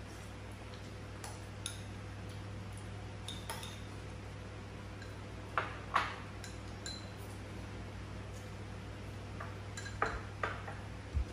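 Chopsticks and a spoon clicking and clinking against porcelain rice bowls while eating, a few scattered clinks with the loudest about six seconds in, over a steady low hum.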